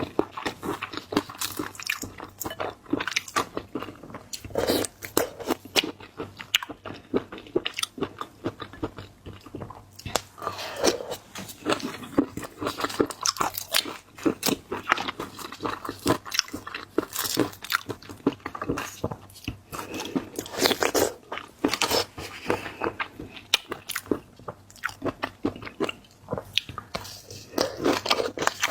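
Close-miked mukbang eating of seafood: steady biting, crunching and chewing with many sharp crunchy clicks throughout.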